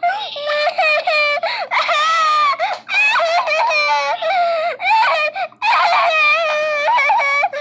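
High-pitched, wordless, cry-like voice, whining in long drawn-out phrases that waver in pitch, with brief breaks about three seconds in and again a little past five seconds.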